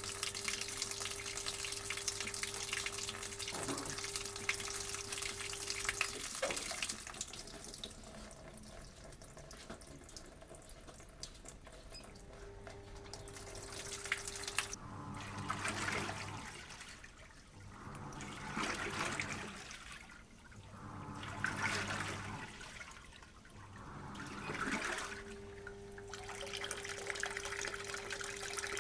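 Samsung top-loading washing machine running with water: a steady rush of water with a hum for the first few seconds, then water sounds that swell and fade about every three seconds, typical of the wash agitating.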